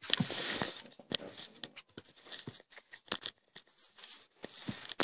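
Handling noise right on a clip-on microphone: fabric rustling and scraping against it, with a run of sharp clicks. It cuts in suddenly and is loudest in the first second.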